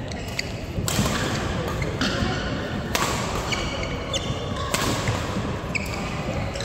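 Badminton rally in a sports hall: three sharp racket hits on the shuttlecock, about two seconds apart, with short high squeaks of court shoes on the floor between them.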